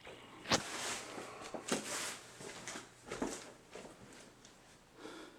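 A sharp click, then a few softer clicks and knocks with brief rustling, from switching the ceiling fan's light off and the fan on to low.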